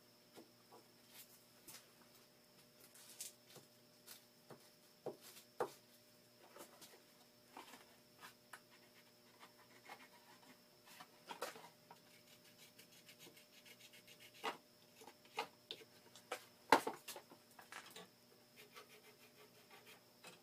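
Quiet handling of a steel bar in a bench vise and marking it with an industrial paint marker: scattered light clicks, taps and rubbing, with a sharper metallic knock about three-quarters of the way through, over a faint steady hum.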